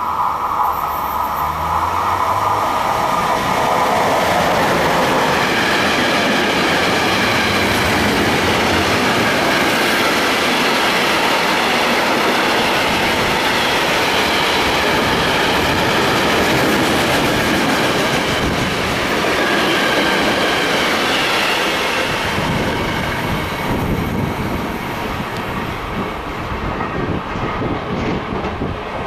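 Freight train of container wagons behind an electric locomotive passing close by at speed: a steady loud rush of wheel-on-rail noise with clickety-clack over the rail joints. The noise eases off in the last several seconds as the end of the train goes by.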